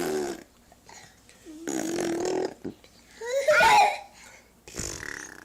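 A one-year-old toddler making breathy, sigh-like sounds, blowing air out with her voice held on one low note. About three seconds in comes a louder, short, high-pitched vocal sound that rises and falls, and near the end there is one more brief breathy puff.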